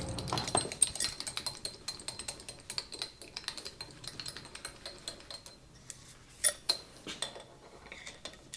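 Small metallic clinks and ticks of an adjustable wrench working the nylock nut on a South Bend lathe tailstock's handwheel, with a faint high ringing through the first five seconds or so and two sharper clicks about six and a half seconds in.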